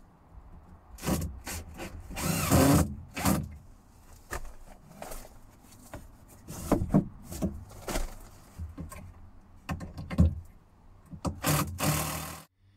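Cordless drill-driver running in two short bursts, driving screws into the timber battens of a ceiling frame, with knocks and scraping of wood being handled in between.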